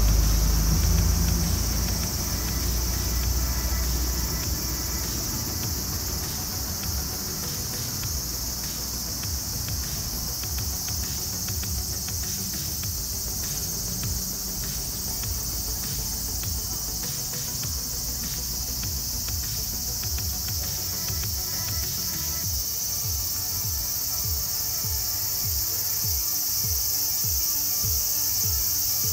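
A steady, high-pitched drone from a chorus of insects in the trees. Low wind rumble on the microphone in the first few seconds.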